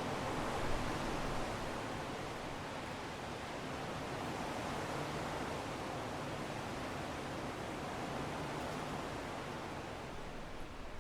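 Strong wind blowing in a steady rush that swells slightly about a second in and eases a little near the end.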